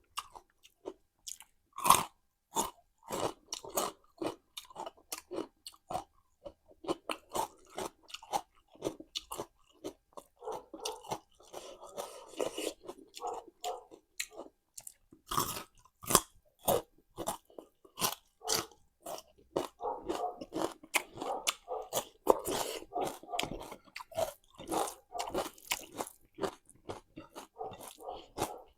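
A person chewing and crunching food close to the microphone: sharp crunchy bites, the loudest about 2 s and 15 s in, with stretches of rapid wet chewing between them.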